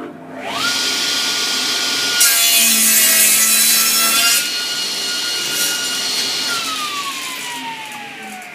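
Charnwood W619 table saw started up, its motor whining up to speed within half a second and then running steadily. About two seconds in, the blade cuts through a piece of wood for about two seconds. It then runs free until it is switched off and winds down with a falling whine.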